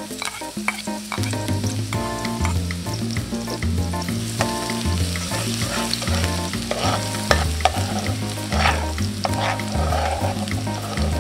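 Minced garlic sizzling and frying in hot oil in a metal pot, stirred with a metal spoon that clicks and scrapes against the pan.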